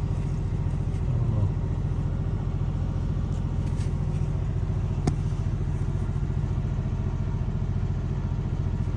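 Diesel engine of a small excavator idling steadily, a low even hum with a fast pulse. A single sharp click about five seconds in.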